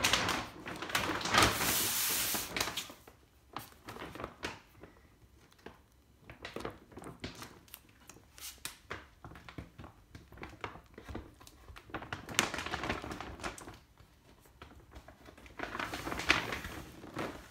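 Rustling and crinkling with scattered knocks and clicks, in three louder bursts: at the start, about two-thirds through and near the end.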